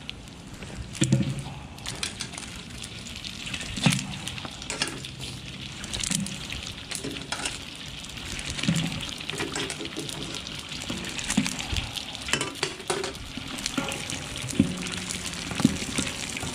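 Whole pig's feet deep-frying in very hot lard in a large steel pot: a steady sizzle full of sharp crackles and pops as the skin bursts and puffs, the sign it is crisping. A wooden paddle stirs them, knocking against the pot now and then.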